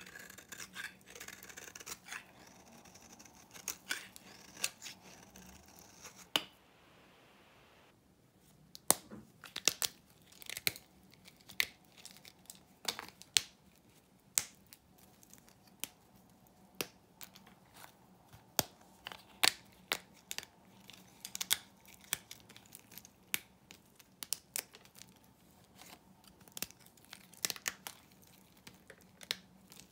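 A knife shaving curls off a bar of old soap, a dry scraping over the first several seconds. After a short pause, hands snap thin slices of the old soap into pieces, a crisp snap every second or so.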